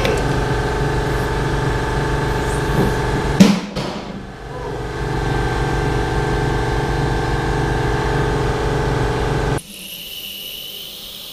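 Electric hydraulic pump of a two-post car lift running steadily under load, with a loud clank about three and a half seconds in. The motor cuts off suddenly near the end, and a quieter hiss of fluid follows as the release lever is worked to lower the lift.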